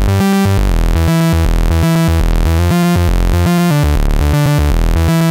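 A 'Super Fat Moog' software synth patch in Logic Pro playing back an arpeggio: one held note broken up by the arpeggiator into a fast, even stream of short notes running up and down.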